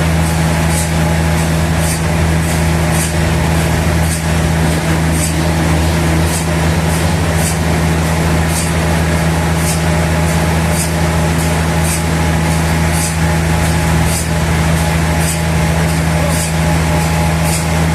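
Sawmill machinery running steadily, a loud even motor hum with a light high tick repeating about twice a second.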